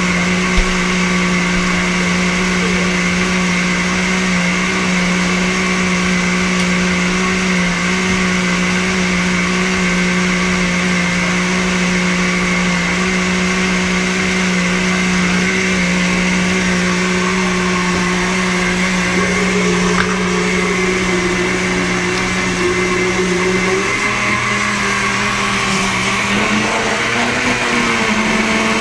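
Countertop blender motor running steadily while it blends a thick kale and mango smoothie. In the last few seconds its pitch wavers and rises a little.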